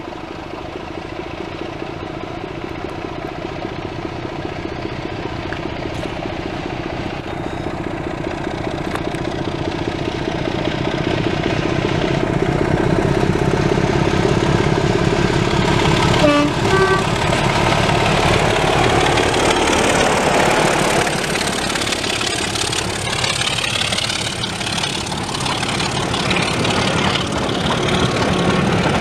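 Class 24 diesel locomotive working hard as it pulls a passenger train away, its Sulzer six-cylinder engine note growing louder as it approaches and passes. A brief two-note horn sounds about halfway, and the coaches rumble past in the later part.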